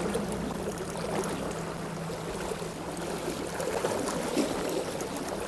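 Steady wash of seawater lapping at the shore.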